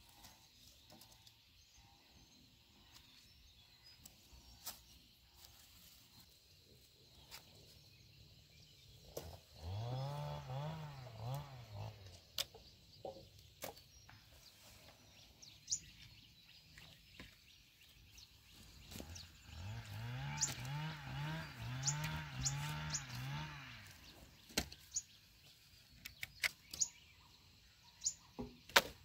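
Freshly cut green wooden poles clack and knock now and then as they are picked up and laid on a pile, with a few bird chirps. The loudest sound is a pitched, wavering call that rises and falls in repeated swells: about two seconds of it a third of the way in, and about four seconds of it again after the middle.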